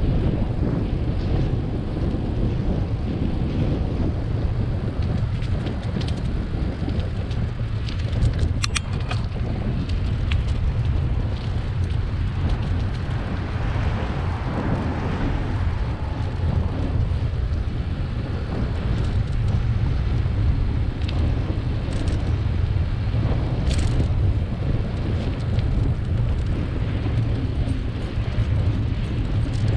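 Wind rumbling steadily on the microphone of a bicycle-mounted camera while riding, over tyre and road noise. A swell of passing traffic comes about halfway through, and there are a couple of sharp clicks.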